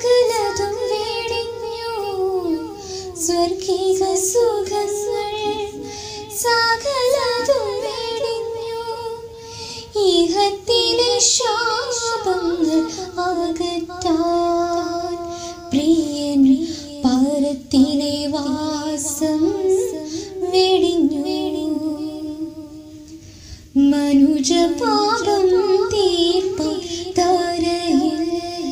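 A woman singing a Malayalam Christian devotional song in a light, high voice. The melody is sung in ornamented, gliding phrases with short breaks between them.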